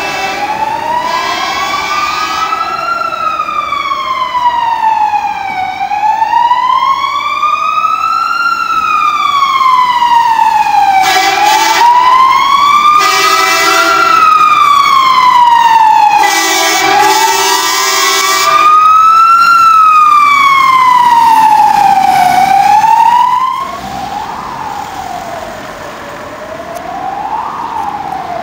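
Fire engine siren wailing, sweeping slowly up and down in pitch, with three long blasts of its air horns about halfway through. Near the end the level drops suddenly and a quieter siren continues, sweeping up and down faster.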